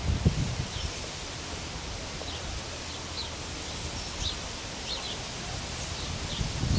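Outdoor canal-side ambience: a steady rustling hiss with short, faint bird chirps scattered every second or so. A low rumble from wind on the microphone fades out in the first half-second.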